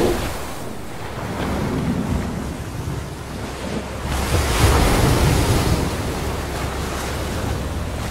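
Ocean waves and rushing water, swelling into a louder wash with a low rumble about four seconds in, then settling to a steady surf.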